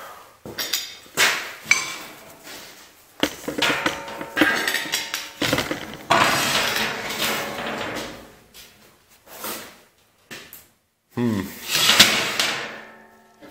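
Steel plate being handled and shifted: a series of metallic clanks and knocks, some leaving a short ringing tone, with a longer scrape of about two seconds in the middle.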